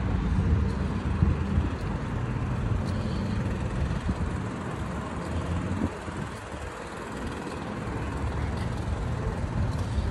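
Steady low outdoor rumble with no distinct events, easing briefly about six seconds in.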